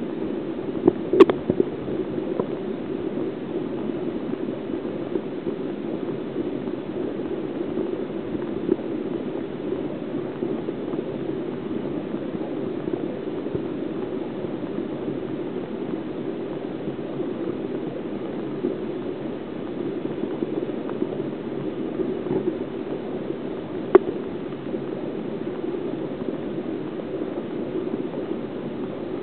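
Steady bubbling and gurgling of water in a sea urchin tank, with a sharp click about a second in and another late on.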